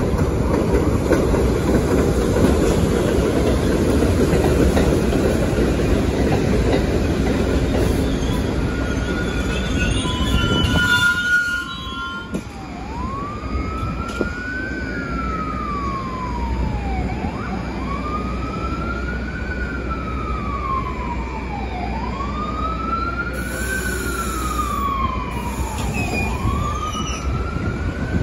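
An R62A subway train rumbles into an elevated station, its wheels and brakes squealing briefly with high tones as it slows. After a sudden cut, a siren wails up and down about once every four seconds over the quieter hum of the standing train.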